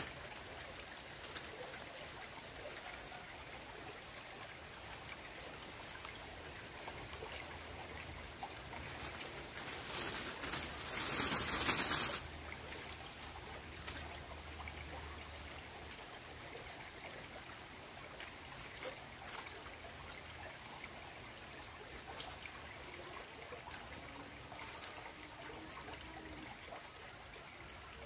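Shallow, slow-flowing stream trickling steadily, with a louder burst of noise for about two seconds about ten seconds in.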